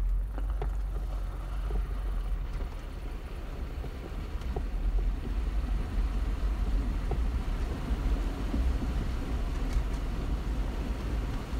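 Jeep Wrangler Unlimited (JKU) driving slowly through shallow floodwater, heard from inside: a steady low rumble of engine and road noise.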